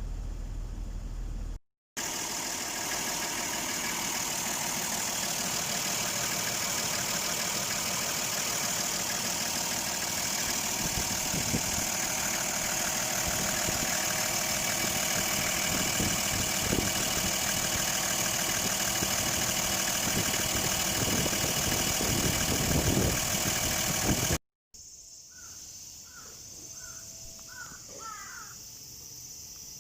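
Toyota Land Cruiser 60's engine idling steadily under a bright, steady high hiss, cut off abruptly near the end. After the cut it is much quieter, with a few short chirps.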